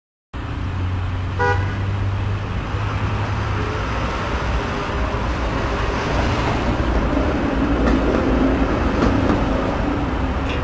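Stock intro sound effect of a car on the road: a loud, steady rush with a low engine rumble that starts suddenly, and a short horn toot about a second and a half in.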